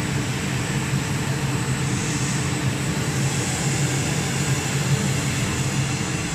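One-colour flexo label printing and varnishing machine running, a steady mechanical hum with a constant hiss of rollers and drive.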